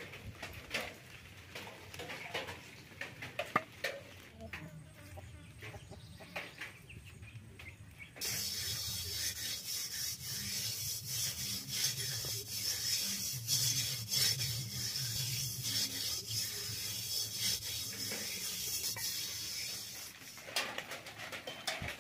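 A hand rubbing round and round over the outside of a round metal cooking pot: a steady scratchy rubbing that starts suddenly about eight seconds in and stops near the end, after a few seconds of small scattered clicks.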